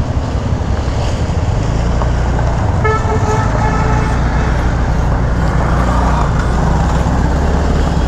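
Road traffic in a jam: a steady low vehicle engine hum, with a vehicle horn honking briefly about three seconds in.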